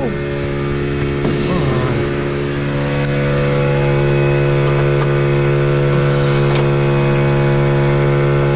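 A motor running steadily with an even, unchanging hum, growing a little louder over the first few seconds.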